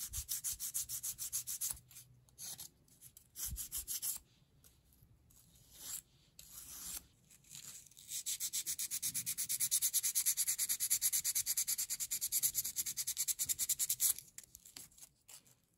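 Abrasive rubbed quickly back and forth over a thin metal strip from a Montblanc 322 fountain pen, making a fast, even scraping. It comes in short spells at first, then a longer, louder run from about halfway until shortly before the end.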